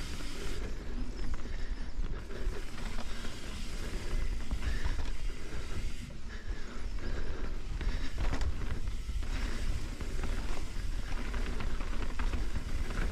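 Mountain bike rolling fast down a dirt singletrack: a steady low rumble of wind buffeting the microphone and trail vibration, with tyre noise on the dirt and scattered rattles and clicks from the bike over roots and bumps.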